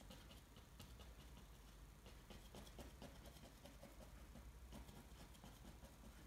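Faint, irregular light tapping of a paintbrush dabbing paint onto canvas, over a near-silent room.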